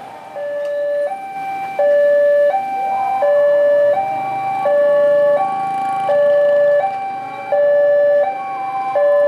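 Railway level crossing warning siren sounding a high-low two-tone alarm, each tone held about 0.7 s, warning that a train is approaching. It starts about half a second in and is louder from about two seconds in.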